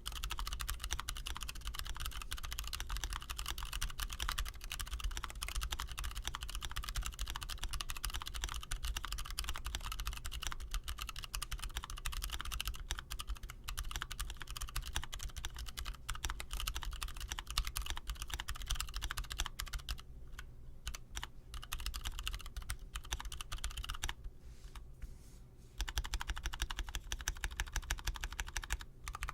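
Fast, continuous typing on a mechanical keyboard: a dense run of key clicks and clacks. It breaks off briefly twice in the last third, and the last few seconds are louder.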